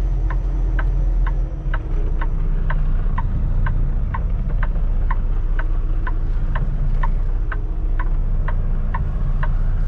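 Semi truck's diesel engine running at low speed, heard from inside the Kenworth T680 cab, with a cab indicator ticking steadily about twice a second.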